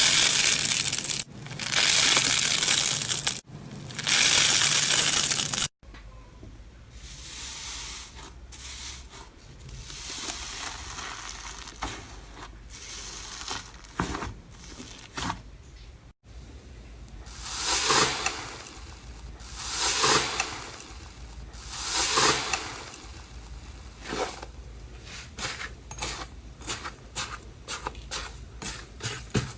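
Slime being squeezed, stretched and poked close to the microphone, in three separate takes. It starts with loud, dense squishing, turns to softer sticky clicks, then three swelling squishes about two seconds apart, and ends with a quick run of small pops.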